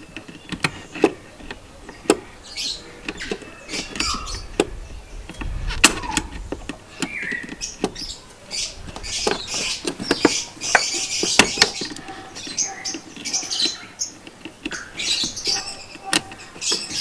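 Water pump pliers squeezing spring-loaded hose clamps and working them back onto rubber heater hoses: irregular metallic clicks, snaps and short scraping sounds.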